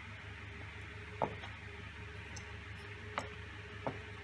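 Handheld tube cutter being tightened and turned on a pipe to score a small cut: three short sharp ticks, about one, three and nearly four seconds in, over a steady low hum.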